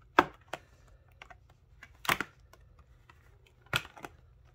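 Speaker box being opened by hand: a few sharp clicks and knocks from the cardboard packaging. The loudest comes about a quarter second in, with others about two seconds in and near the end.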